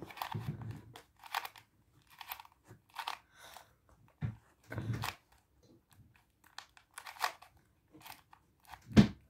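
3x3 Rubik's cube being twisted by hand: its plastic layers click and rattle in short, irregular bursts, with one louder knock near the end.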